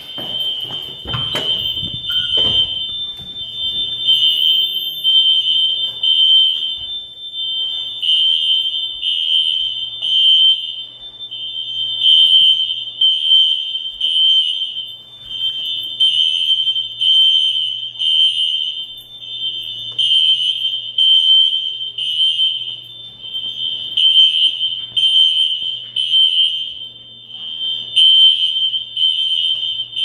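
Building fire alarm sounding: a loud, high-pitched electronic tone repeating in regular pulses without a break. A few knocks come in the first couple of seconds.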